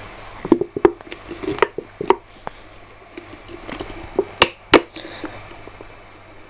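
Mayonnaise squeezed out of a plastic squeeze bottle into a plastic bowl: a run of short squirts and clicks over the first two seconds, then two sharp knocks close together about four and a half seconds in.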